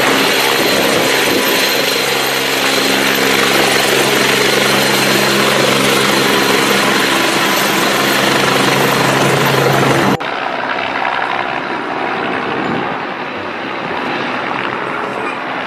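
Light helicopter hovering low, its rotor and engine running steadily with a steady high whine above the rotor noise. About ten seconds in a sudden cut drops it to a quieter, more distant sound of the helicopter in flight.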